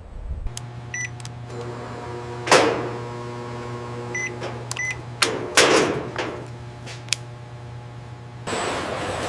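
A steady electrical machine hum with short high beeps, in single blips and a quick pair, and several loud clunks, the loudest about 2.5 s and 5.5 s in. About 8.5 s in the hum stops and a steady hiss takes over.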